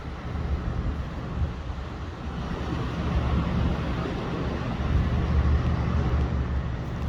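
Low, steady engine rumble with general outdoor noise, growing somewhat louder about halfway through.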